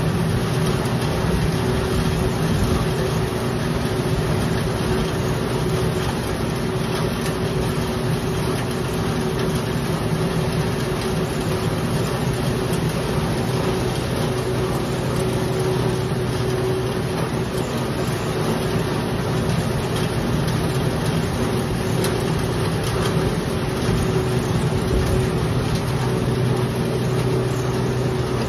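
Black pepper threshing machine running steadily under load, its motor and threshing drum making a continuous hum with a steady mid-pitched tone.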